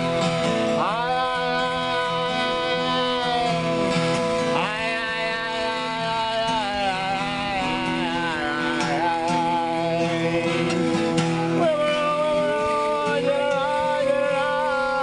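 Music: a lead voice holding long notes that slide up into pitch several times, over a steady backing.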